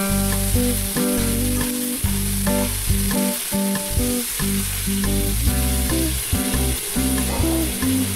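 Onions and soy sauce sizzling in a frying pan while a spatula stirs them, with chicken stock poured in about halfway through. Background music with a melody runs under it.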